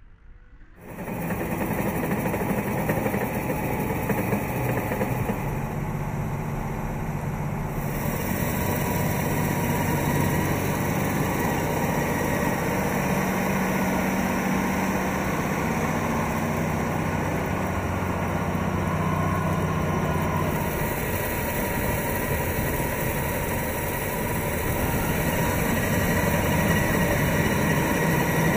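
Steyr CVT 6240 tractor's six-cylinder diesel engine running steadily as the tractor works the field on rubber tracks. It comes in about a second in.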